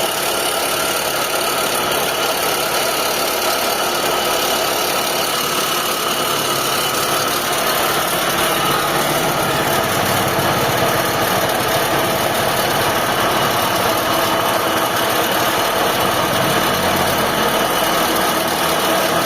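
Mitsubishi Lancer 4G-series four-cylinder engine idling with the air-con off, with a steady grinding whir from the A/C compressor pulley. The noise comes from a worn bearing in the compressor's pulley.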